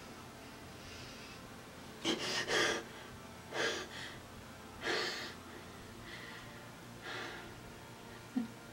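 A woman's breathing: a handful of short, breathy gasps and sighs spaced a second or two apart, the loudest pair about two seconds in, over quiet room tone.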